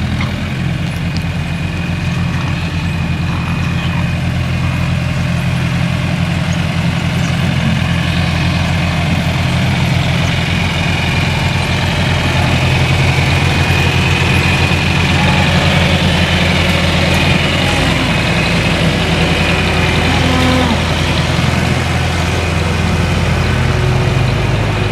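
An engine idling steadily, a constant low hum. The lowest part of the hum shifts about two-thirds of the way through.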